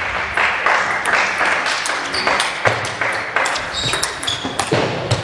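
Table tennis rally: the ball clicking sharply off the paddles and the table in quick succession, over the steady background noise of the sports hall.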